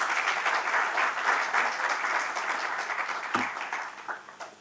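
Audience applauding at the end of a lecture. The clapping dies away near the end, with a single thump as it fades.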